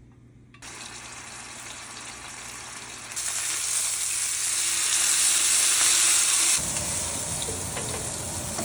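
Marinated chicken breasts sizzling as they sear on a hot grill. The hiss starts about half a second in, gets louder about three seconds in, and shifts to a lower, coarser sizzle near the end.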